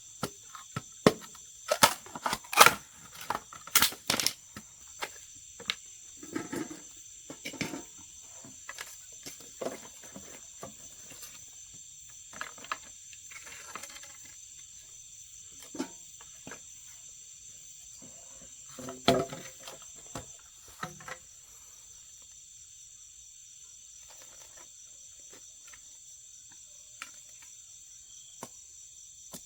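Crickets chirping in a steady high drone, with scattered knocks and clatter that are loudest in a cluster a couple of seconds in and again about two-thirds of the way through.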